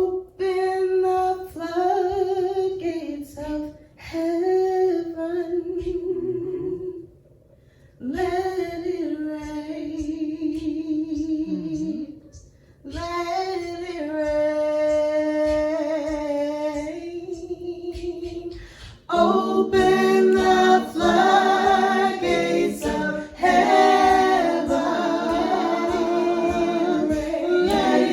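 A cappella gospel worship singing. A woman sings the opening phrases alone, in long held notes with short pauses between them. About two-thirds of the way through, a group of voices joins in harmony and the singing gets louder.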